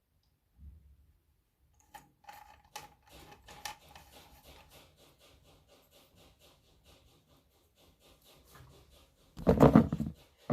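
Plastic ring-light parts being twisted and screwed together, a fast run of faint small clicks and rubbing as the ball-joint phone mount is fixed onto the ring. A loud handling bump comes near the end.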